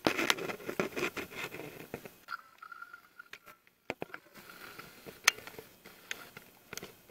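Handling noise of a camera being moved about inside a steel pipe: irregular scraping, scratching and sharp clicks, busiest in the first two seconds, with a brief faint whine a little over two seconds in.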